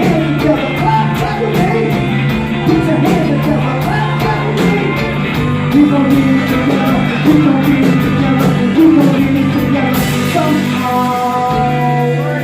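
Live band music with a voice singing over a steady drum beat.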